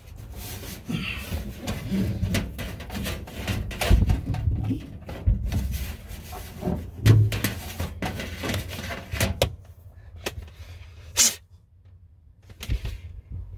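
Hands and a cable scraping, rustling and knocking against the sheet-metal wall panels of a school bus as a backup-camera cable is fished through the wall. There are a few louder thumps in the middle and a single sharp click near the end.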